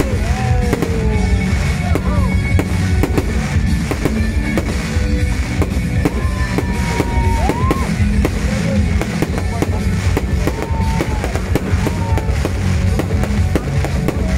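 Fireworks display: a dense, continuous run of bangs and crackling from fountains and rockets, heard with music playing loudly alongside.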